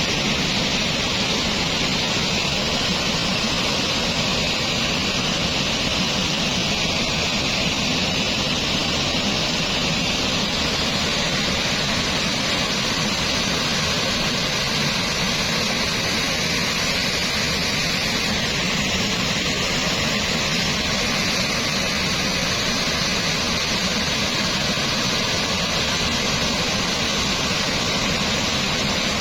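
Floodwater rushing steadily down a seasonal stream bed swollen by heavy rain, a continuous even rush with no break.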